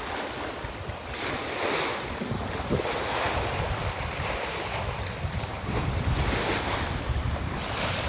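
Sea water rushing and splashing along a moving sailboat's hull, swelling and easing every second or two, with wind buffeting the microphone.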